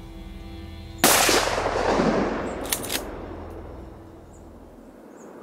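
A single hunting-rifle shot: a sharp crack about a second in, followed by a long echo that rolls away and fades over about four seconds. A brief click comes about two seconds after the shot.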